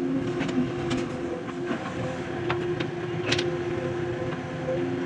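JCB excavator's diesel engine running steadily under working load, with a few sharp metallic clanks and knocks scattered through.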